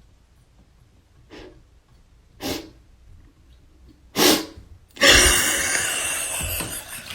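A cat sneezing three times, each sneeze louder than the one before, followed by about two seconds of loud rushing noise.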